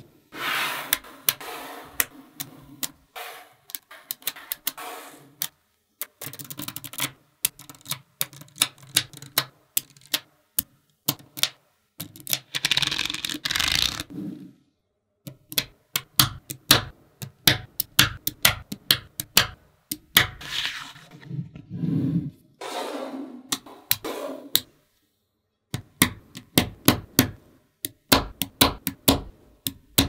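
Small magnetic balls clicking sharply as they snap together, in quick irregular runs of clicks, with a few longer spells of rattling.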